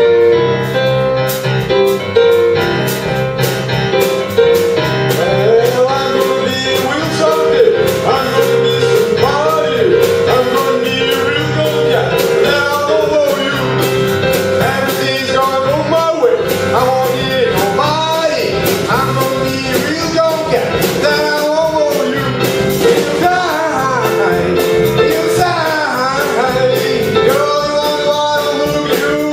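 A live band playing a song over a steady beat, with a voice singing the melody from about five seconds in.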